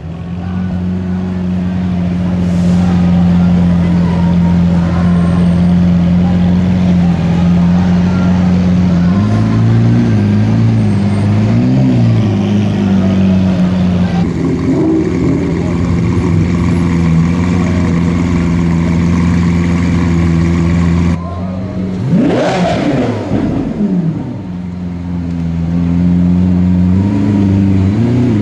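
Lamborghini Aventador's V12 engine idling steadily, blipped a few times, and revved hard once about three quarters of the way through, the pitch climbing and dropping back.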